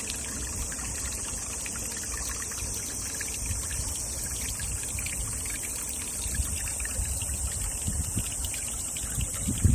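A forest stream trickling and babbling in a steady flow, with a steady high hiss above it and low rumbles that grow stronger near the end.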